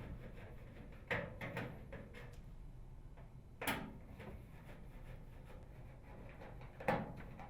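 Faint, sharp clacks of a screwdriver and screws being handled against a microwave oven's sheet-metal cover while the cover screws are removed: a couple about a second in, one after about three and a half seconds and one near the end, over a low steady hum.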